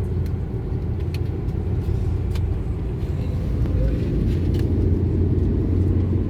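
Car driving: a steady low engine and road rumble, with a few faint clicks.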